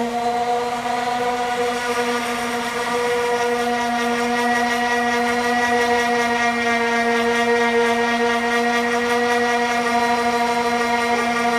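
Power sander running at a steady speed with a constant whine, working body filler on a rusted panel.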